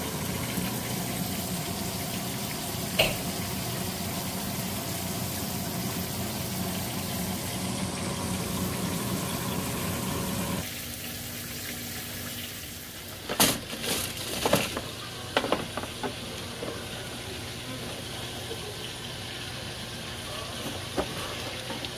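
PowerXL Vortex air fryer running with a steady fan whoosh and the pork chops sizzling inside; the fan noise cuts off about ten seconds in. A few seconds later come several sharp knocks and clatters, with lighter ticks after.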